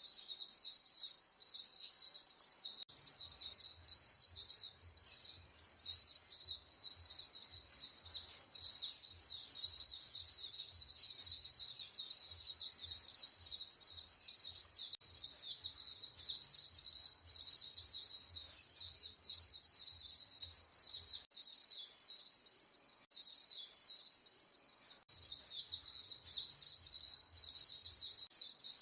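A flock of female white-eyes (vành khuyên) calling to one another in a dense, unbroken stream of rapid, high chirps.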